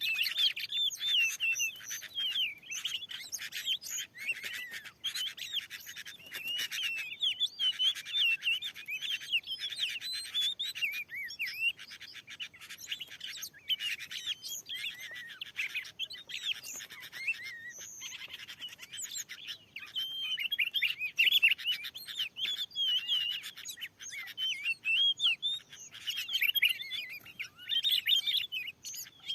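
Oriental magpie-robin (kacer) singing a long run of quick, varied chirps and whistles.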